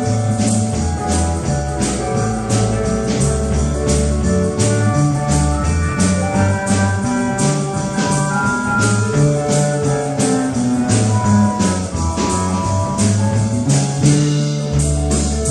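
A live rock band playing an instrumental passage: a soprano saxophone carries the lead melody over a moving bass line and drums keeping a steady beat.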